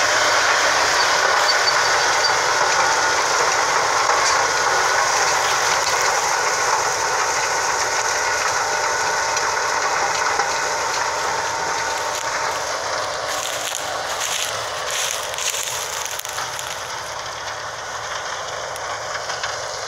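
John Deere tractor running under load while pulling a soil-preparation implement through the ground, a steady mechanical noise with a faint whine that fades gradually as the tractor moves away.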